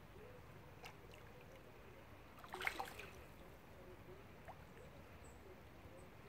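Faint, steady flow of a shallow creek, with a short spell of splashy crackling about two and a half seconds in.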